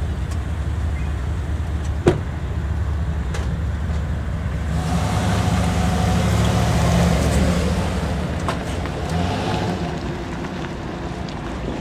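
CSX GE ES40DC diesel-electric locomotive approaching slowly, its engine a steady low drone. A sharp knock comes about two seconds in, and the sound swells midway through, then eases.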